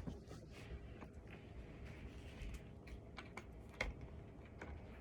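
Scattered light clicks and taps from cat tree parts being handled during assembly, a few irregular knocks a second or so apart.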